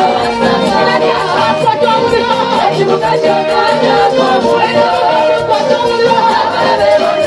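Loud live gospel praise music: voices singing together over a band with a steady drum beat.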